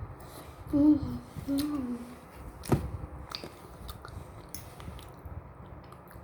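A person eating spicy instant noodles with the mouth close to the microphone: chewing, two short closed-mouth "mm" hums about a second in, and a sharp click a little later.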